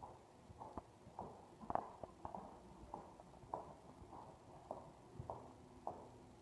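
Hoofbeats of a ridden horse in deep arena sand: a faint, uneven run of soft thuds about two a second.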